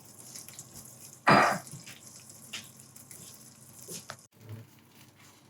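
Pancake batter sizzling in an oiled frying pan, a faint steady hiss with small ticks and pops. A short loud noise cuts in about a second in.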